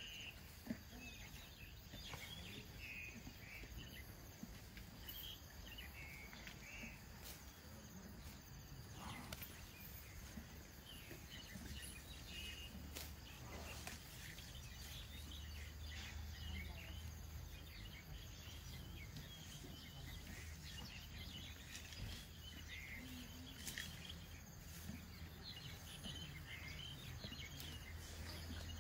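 Faint outdoor ambience: scattered bird chirps and insect calls over a low steady hum that grows stronger about twelve seconds in, with a single sharp click just under a second in.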